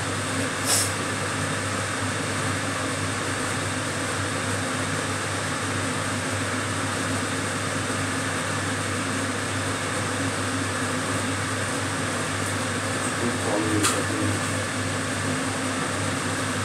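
Kitchen extractor fan running with a steady whoosh and low hum, with a short click about a second in and another near the end.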